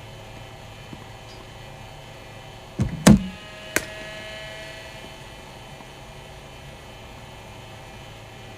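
Cricket bowling machine running with a steady hum. About three seconds in there is a loud thump as a ball is fired, and under a second later a sharp crack of the bat hitting the ball that rings briefly.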